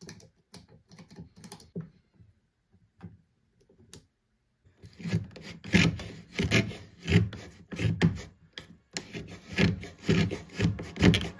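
Handmade wooden router plane paring a recess in a wooden board: a few faint clicks at first, then from about five seconds in a series of short scraping cuts, nearly two a second, as the blade lifts curled shavings.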